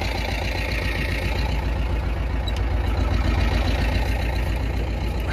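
Władimirec T-25 tractor's two-cylinder air-cooled diesel running steadily with an even low beat, a little louder in the middle.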